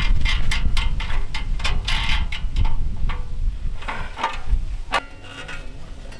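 Quick metallic clicks and clanks of a folding steel fire pit's parts being handled and fitted together. They come thick and fast over a low rumble at first, then thin out to a few near the end.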